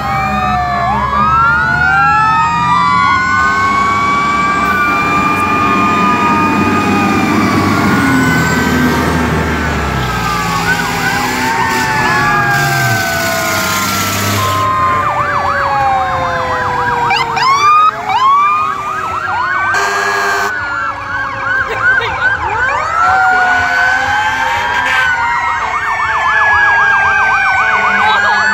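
Many emergency-vehicle sirens sounding at once from a line of passing emergency vehicles: overlapping slow rising and falling wails, with fast yelps cutting in around the middle and again near the end.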